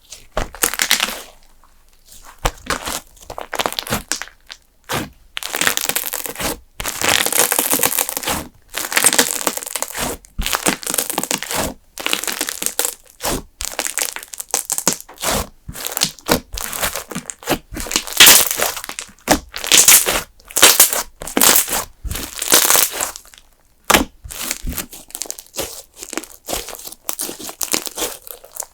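Custard-base slime being pressed, squished and stretched by hand, giving off irregular bursts of crackling and popping.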